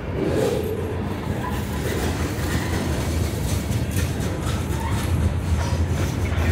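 Freight train's tank cars and covered hopper cars rolling past close by: a steady rumble of steel wheels on the rails, with repeated clicks from the wheels.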